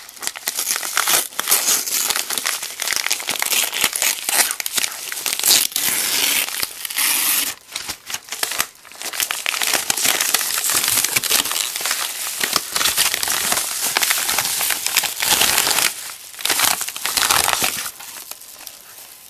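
Padded paper mailer being torn open and handled, a continuous crinkling and rustling of paper with a short lull about eight seconds in, quieter near the end.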